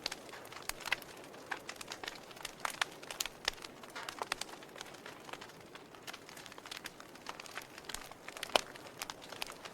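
Wood fire in a fireplace crackling: irregular sharp pops and snaps over a soft hiss, with one louder pop near the end.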